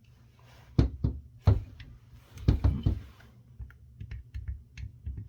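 Irregular knocks and light clicks of a mobile two-way radio being taken apart by hand: the metal parts are knocked against each other and screws are removed and set down. A string of quick, faint ticks follows in the second half.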